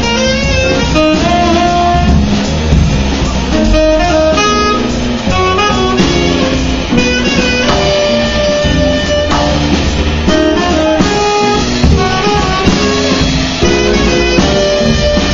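Tenor saxophone improvising a jazz solo, a continuous line of held and quick notes, with a plucked double bass accompanying underneath.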